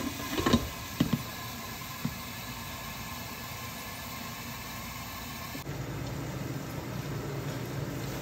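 A glass pot lid set down on a pot with a few clinks in the first second, then a steady hiss of onions, peppers and tomatoes sizzling under the closed lid as the tomatoes soften and give up their water.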